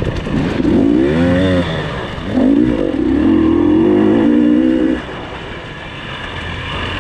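Dirt bike engine being ridden hard, revs swinging up and down, then held high and steady for a couple of seconds before the throttle closes about five seconds in and the engine note drops.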